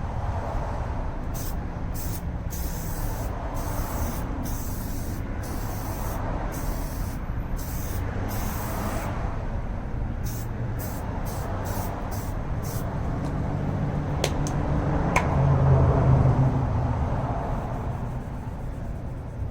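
Aerosol can of Meguiar's Keep Clear headlight coating spraying the second coat: a long run of short hissing bursts, most a fraction of a second and a few up to about a second, stopping about thirteen seconds in. A steady low rumble runs underneath and swells briefly near the end.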